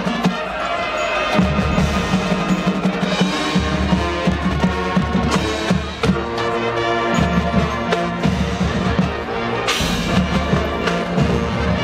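High school marching band playing: brass and drums over held low notes that change every second or two, with a loud crash near the end.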